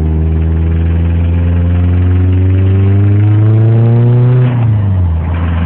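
Nissan KA24DE 2.4-litre four-cylinder engine pulling under load, its pitch climbing steadily, then dropping quickly about four and a half seconds in and settling lower. The engine has a rod knock, which the owner says can be heard as it runs.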